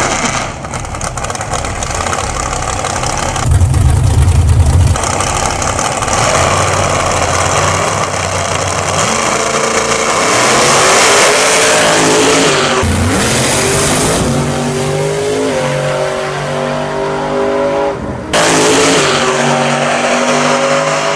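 Drag-racing cars at full throttle, the engine pitch rising again and again as they accelerate down the strip. The sound changes abruptly several times.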